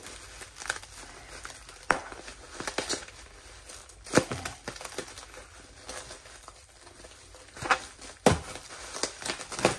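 Plastic bubble wrap being handled and cut open: crinkling with several sharp, short crackles.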